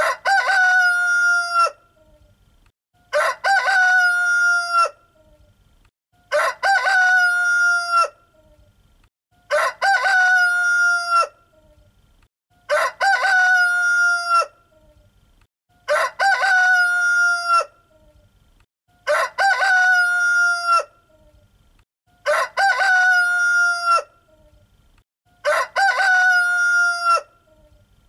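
Rooster crowing cock-a-doodle-doo, nine identical crows at an even pace of about one every three seconds, each about two seconds long with quiet in between.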